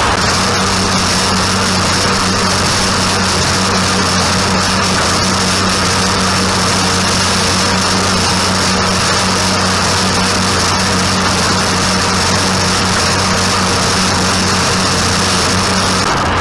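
Farm tractor engine running steadily while working hay, with a steady low hum and a high whine that come in about half a second in and drop out near the end.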